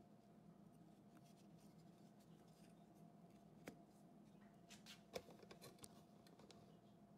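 Near silence: a faint steady hum of room tone, with a few light taps and knocks, the clearest about halfway through and again about two-thirds in, as a wooden fence-post block with a dowel is handled on a stone countertop.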